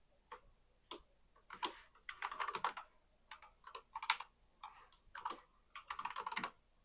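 Computer keyboard typing: a few separate keystrokes, then two quick runs of keys, as the root account password is entered.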